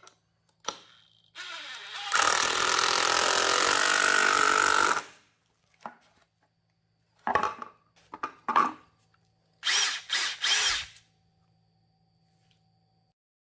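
Hitachi WH14DBAL cordless impact driver driving a screw into a wooden board. It runs hard for about three seconds, then gives several short bursts later on.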